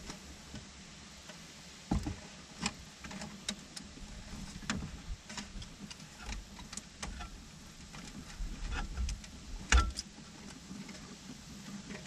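Scattered small clicks and taps of pliers working a plastic clip-on wire splice connector while it is squeezed shut onto the wires, with one louder click a little under ten seconds in.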